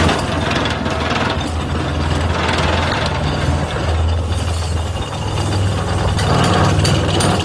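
Heavy diesel engine of a 50-ton excavator running with a steady low drone, overlaid by clattering and rattling from a vibro ripper attachment at work. A few sharper knocks come near the end.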